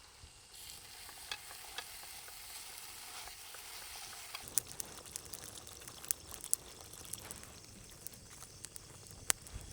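Masala paste frying in oil in a pan: a soft, steady sizzle with scattered sharp pops and crackles that thicken about halfway through. The oil is starting to separate from the masala, the sign that the paste is cooked through.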